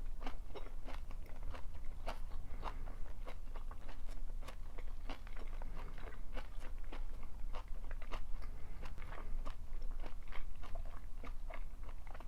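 Close-miked chewing of stir-fried napa cabbage and shredded pork, with crisp, wet crunches about twice a second.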